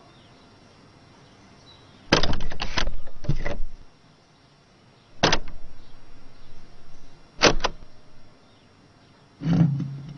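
Cartoon sound effects of knocking and clattering. A rapid clatter comes about two seconds in, one sharp knock follows a few seconds later, then a quick double knock, and a low rumbling sound starts near the end.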